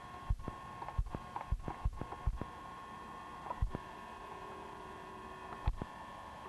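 A steady electrical hum with several short, soft low thumps at uneven intervals.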